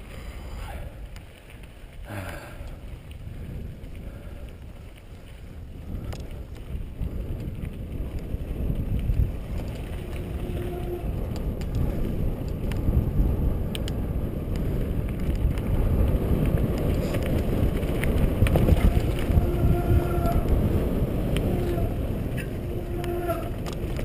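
Mountain bike riding down a dry dirt singletrack, heard from a helmet camera: tyres rumbling over the dirt and wind on the microphone, growing louder after about six seconds as speed builds, with scattered clicks and rattles from the bike. A steady humming tone comes and goes in the second half.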